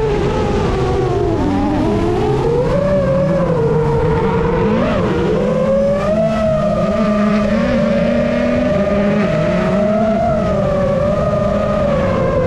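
FPV racing drone's electric motors and propellers whining close to the microphone, the pitch wavering slowly up and down as the throttle changes.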